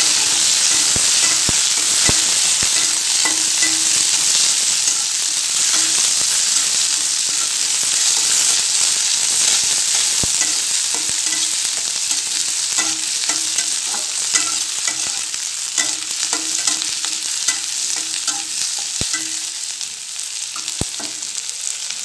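Garlic cloves, shallots and green chillies sizzling in hot mustard oil in a small kadai, stirred with a steel spatula that scrapes and clicks against the pan. The sizzle is loudest at first, just after the chillies go in, and gradually eases off toward the end.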